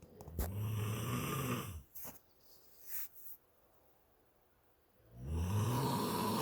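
Snoring: two long, low, buzzing snores about four seconds apart, with a couple of short breathy sounds between them.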